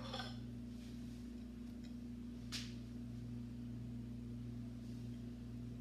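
Quiet room tone with a steady low electrical hum, and one faint short click about two and a half seconds in.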